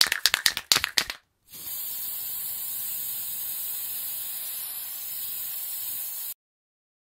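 Spray-paint sound effect: a quick run of sharp clicks, then a steady hiss of spraying for about five seconds that cuts off suddenly.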